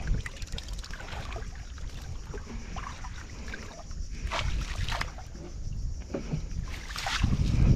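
Wet prawn net hauled by hand out of muddy shallow water, with scattered splashes and water dripping and sloshing off the mesh. Wind rumble on the microphone throughout, louder near the end.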